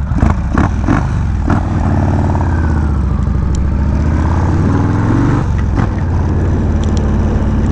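Yamaha Road Star Warrior 1700's big V-twin running under way. It revs up several times in quick succession at the start, then pulls steadily higher for a few seconds, drops back near the middle and holds an even note.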